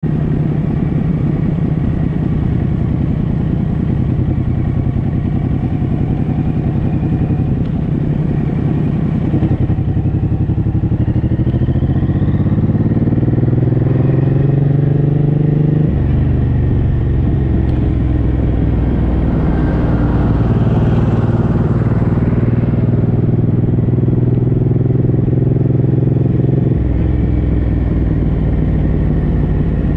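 Suzuki M109R's 1800 cc V-twin engine running while riding at low speed. Its pitch rises for several seconds, then drops suddenly about halfway through as it changes gear, and it changes again near the end.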